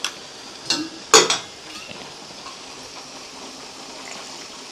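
A few sharp clinks of a metal spoon against a stainless-steel pot in the first second and a half, over the steady sizzle of chicken frying in onion-tomato masala.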